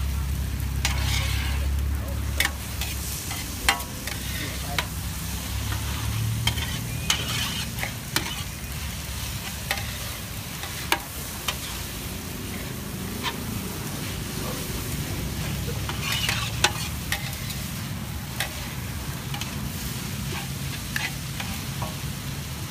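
Noodles stir-frying in a wide metal pan: steady sizzling, with the metal spatula and ladle clinking and scraping against the pan at irregular moments every second or two.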